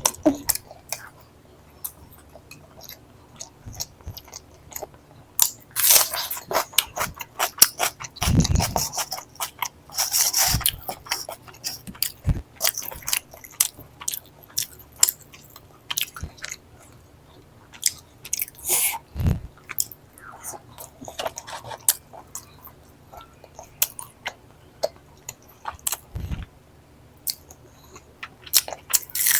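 Close-miked chewing and biting of a meal of chicken korma with roti: irregular wet smacks and crunchy clicks, with a few louder bites scattered through.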